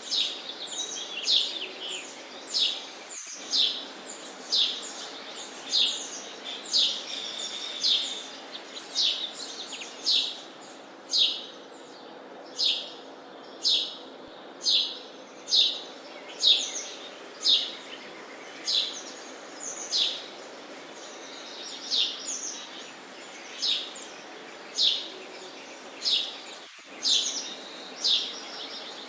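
Sparrow chirping: a steady series of short, sharp chirps, roughly one a second, each dropping quickly in pitch, over a faint background hiss.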